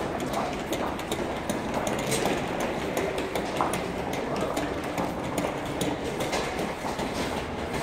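Footsteps clicking on a hard tiled floor in an echoing underground subway passage, a few steps a second, over a steady background noise of the station.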